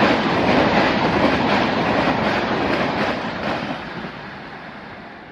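Double-decker express passenger train passing at high speed: a steady rumble of wheels on rail with a rapid clickety-clack over the joints, fading away as the last coach goes by.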